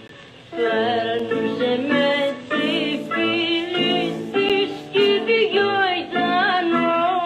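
Old, crackly rebetiko record playing: a singer with a strong vibrato over string accompaniment, coming back in about half a second after a brief pause, with scattered surface clicks.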